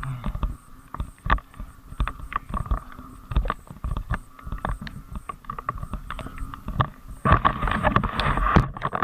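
Bicycle rattling and knocking over a rough, wet road in the rain, with frogs calling in a steady chorus behind it. The rattling and noise get louder for about a second near the end.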